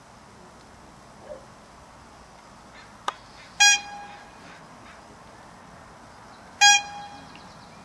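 Two short, loud horn toots about three seconds apart, each one steady note, with a sharp click just before the first.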